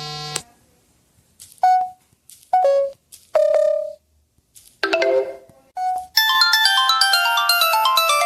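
Samsung Galaxy S25 Ultra phone sounds played one after another: a buzzy tone cuts off just after the start, then a run of short separate notification chimes, and about six seconds in a busy ringtone of quick melodic notes begins.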